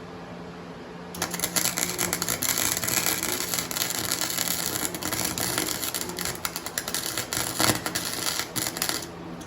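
Flux-core wire welder arc crackling and sputtering as a bead is run over painted steel tube, starting about a second in and cutting off near the end. The paint under the weld is burning, a sign of poor metal contact.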